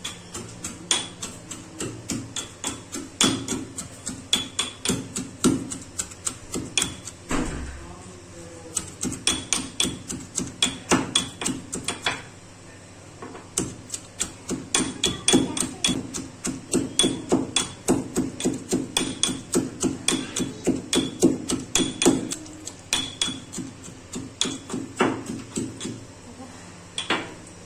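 Stainless steel pestle pounding in a small steel mortar, crushing chutney ingredients: sharp metal-on-metal strikes at about three a second, in runs broken by a couple of short pauses.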